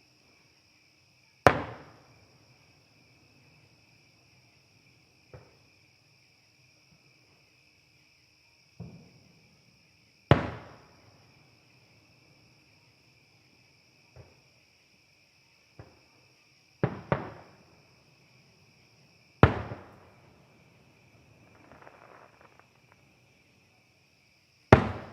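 Distant fireworks bursting: five loud bangs, one a quick double, and several fainter reports scattered between, each with an echoing tail, plus a short patch of crackling near the end. Insects chirr steadily underneath.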